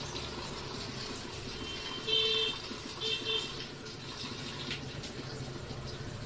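Water running from a kitchen tap into a sink while hands wash under it. Two short beeps break in about two and three seconds in, louder than the water.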